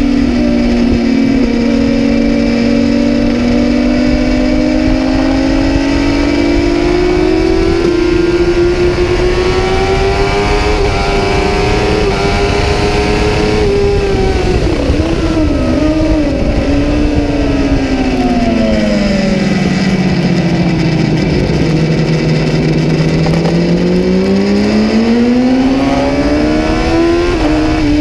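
Kawasaki ZX-10R's inline-four engine at speed on track: the revs climb slowly, then fall with a few quick throttle blips on downshifts about halfway through, run low through a slow corner, and climb again, with a quick gear change near the end.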